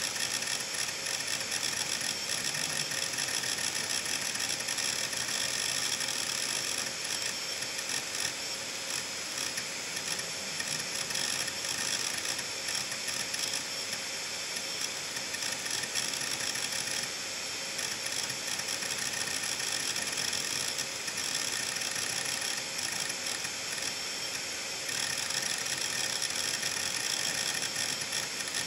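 Seagate Medalist 8630 (ST38630A) hard drive running with its cover off: the head actuator arm seeks back and forth very rapidly, a fast continuous chatter of clicks over the steady whine of the spinning platters. The seeking is driven by several large files being written to many different parts of the disk at once.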